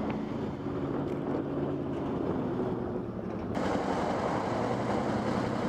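Motorcycle engine running at a steady pace while riding, with wind rushing over the helmet microphone. The wind noise grows louder about three and a half seconds in.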